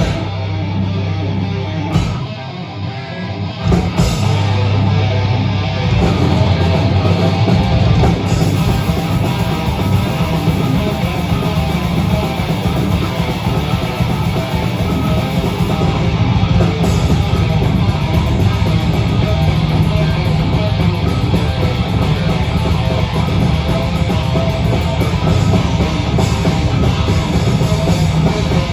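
Live rock band playing a loud instrumental passage with guitar and drums. The sound thins out briefly about two seconds in and comes back in full by about four seconds.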